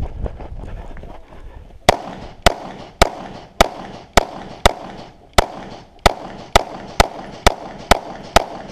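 Pistol shots fired in a rapid string: thirteen sharp shots about half a second apart, starting about two seconds in.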